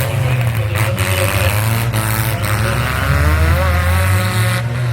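Demolition derby car engines running loudly, their pitch rising and falling as they rev.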